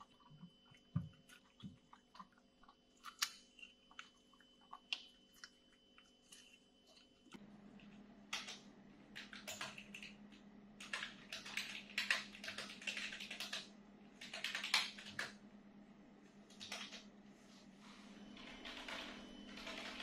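Typing on a computer keyboard: bursts of quick key clicks over a steady low hum. Before that, a few seconds of small scattered clicks and knocks as monkeys handle fruit in an open fridge.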